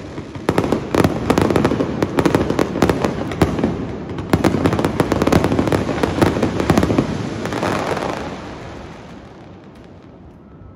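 Fireworks bursting at close range: a dense, rapid crackling of many small sharp reports. It dies away about eight or nine seconds in.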